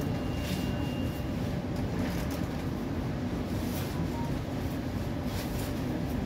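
Steady running noise of an MTR Tuen Ma line C-train heard from inside the carriage: a low rumble of wheels on rail. A faint high whine is heard during the first second or so.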